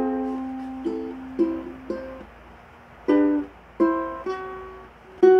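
Ukulele played in a slow run of single strummed chords, each left to ring and fade before the next; the player finds it slightly out of tune.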